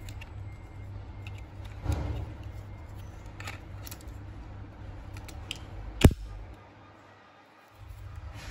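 Hard plastic clicks and handling noise as a Klarus HC5 clip light is fitted into its plastic charging case and the case lid is pressed shut. Among several light clicks there is one sharp, much louder click about six seconds in.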